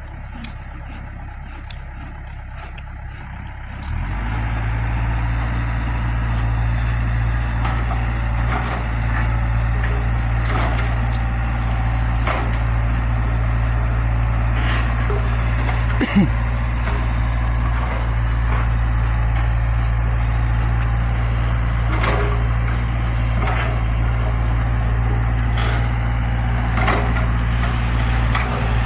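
Zoomlion excavator's diesel engine running steadily and getting louder about four seconds in as it works, with scattered knocks and cracks of digging throughout and one sharper hit about halfway through.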